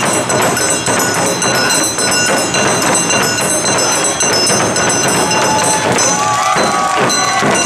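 Awa Odori taiko ensemble playing: carried barrel drums and small shime-daiko beat a fast, dense rhythm, with steady high ringing over it. Shouted calls from the performers come in near the end.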